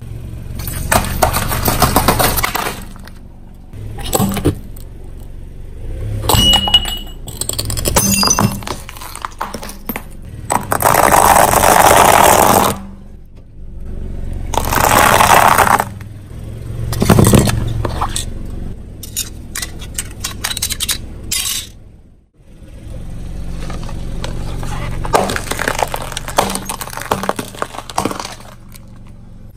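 A car tyre rolling over and crushing a series of objects on concrete: a row of small coloured balls, then a pile of dry pasta crunching and snapping, then a small plastic toy. Several loud spells of crunching and breaking a second or two long, with quieter stretches and sharp cracks between them.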